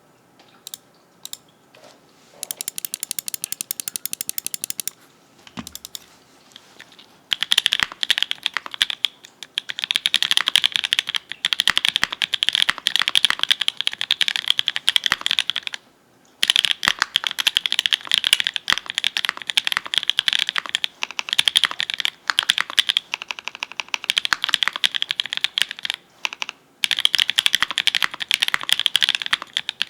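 Typing on a mechanical keyboard with lubed linear switches (Kailh Red POM stems in nylon Everglide V2 housings, 58 g springs), on an FR4 plate with GMK keycaps. It opens with a few single key presses and a quick, even run of clicks for a couple of seconds. Then comes fast continuous typing, with two short pauses.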